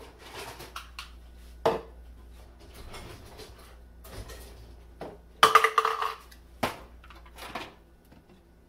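Kitchen clatter: dishes and utensils knocking and clinking against each other, with a ringing clank about a second and a half in and a louder, ringing clatter about five and a half seconds in.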